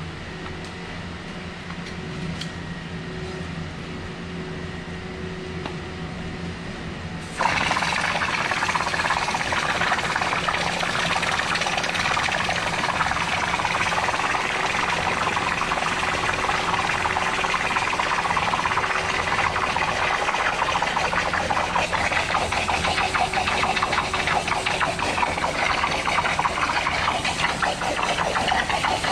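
A pressure washer's engine running steadily. About seven seconds in the lance is triggered and the high-pressure water jet starts with a sudden loud hiss, blasting muck along an ACO channel drain and continuing over the engine's hum.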